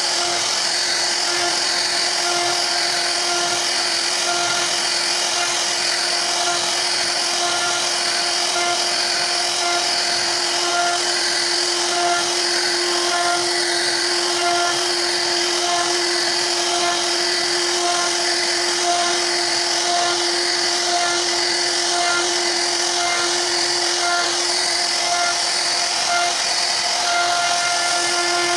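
CNC router spindle running at high speed as its bit carves a relief pattern into a wooden panel: a steady whine with the cutting noise wavering in a regular rhythm.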